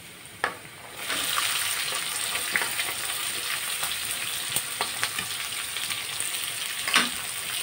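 Chopped onions dropped into hot oil in an iron kadhai, the oil sizzling up sharply about a second in and then frying steadily. A couple of light knocks, one just before the sizzle starts and one near the end.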